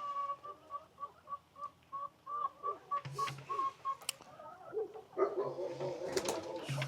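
A bird calling a quick, even run of short high notes for about four seconds, then a jumble of chicken clucking and squawking starting about five seconds in.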